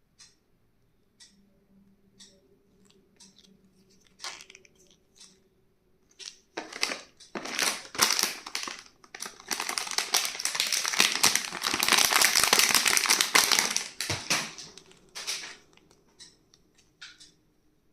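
Packaging being torn open and crinkled by hand: a few light clicks and taps, then a long burst of dense crackling and tearing that peaks and dies away with a few last crinkles.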